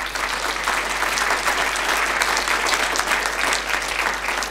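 Audience applauding, a dense patter of many hands clapping that holds steady and begins to die away near the end.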